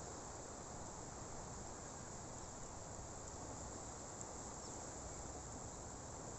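Faint, steady outdoor ambience: an even hiss that is brightest high up, like insects chirring, over a soft low rumble.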